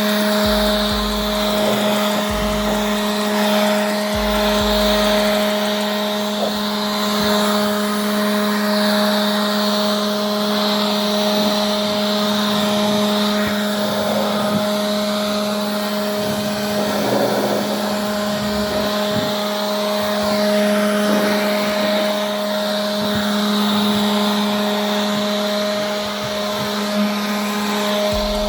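A small electric motor running at a constant speed, giving a steady whine.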